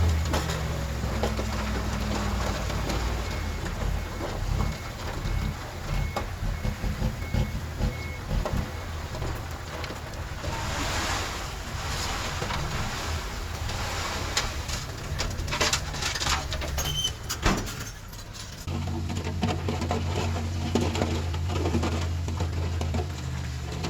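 Bulldozer diesel engine working under load, with metallic rattling and clanking through the middle. The engine drops off briefly near the end, then picks up again.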